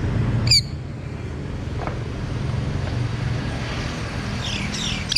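Sun conure giving a short, loud, shrill call about half a second in, then a run of chirps near the end that finishes in another sharp call, over a steady low background rumble.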